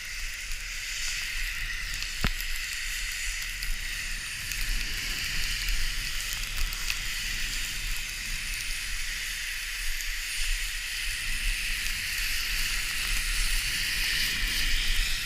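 Skis hissing steadily as they slide over snow, with wind rumbling on the microphone. There is a single sharp click about two seconds in.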